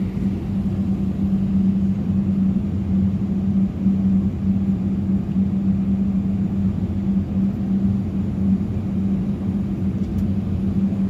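Steady low cabin drone inside an Airbus A319 on the ground, a constant low hum with no sudden events.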